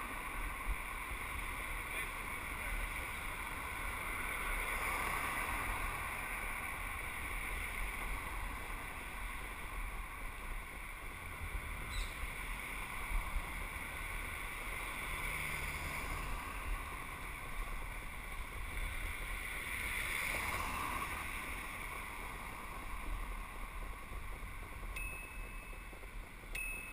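Wind buffeting the microphone of a camera on a moving bicycle, a steady fluttering rush, with the noise of street traffic swelling now and then as cars pass.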